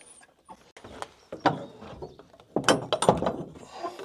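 Wooden door of an old log granary being shut and its latch fastened: a string of knocks and clicks, with the loudest strikes about a second and a half in and a cluster near three seconds.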